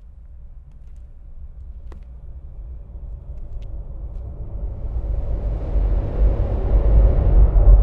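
Horror-film sound design: a low rumbling drone that swells steadily louder across the whole stretch, a tension-building riser.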